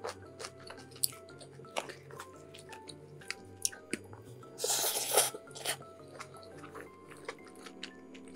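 Close-miked mukbang eating sounds from jjajangmyeon and tangsuyuk: chewing with small wet clicks of the mouth, and one louder, noisy eating sound lasting under a second about halfway through. Soft background music plays underneath.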